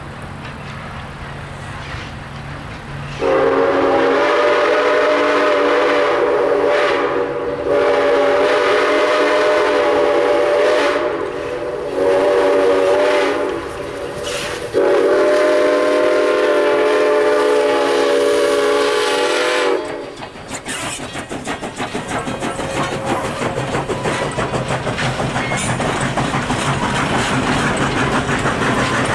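Canadian National 7470, a 1921 O-18a steam locomotive, sounding its steam whistle close by in four blasts, long, long, short, long: the grade-crossing signal. Then its coaches roll past with the clickety-clack of wheels over rail joints.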